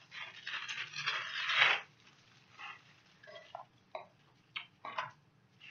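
Rustling and crinkling of packaging paper as it is pulled out of a subscription box, loudest about a second and a half in. After that come a few light clicks and taps from small cosmetic items being handled.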